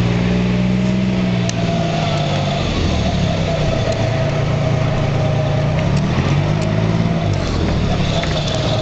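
New Flyer D40HF transit bus's diesel engine and drivetrain, heard from on board while under way. The engine note drops about two seconds in and climbs again around six seconds as the bus pulls away, with a steady higher whine above it.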